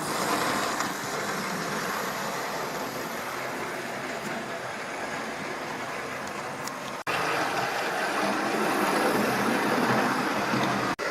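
Hornby OO-gauge model of an LNER A4 locomotive running slowly on model railway track, a steady whirring and rattling of its electric motor and wheels on the rails. The sound cuts abruptly about seven seconds in and comes back louder.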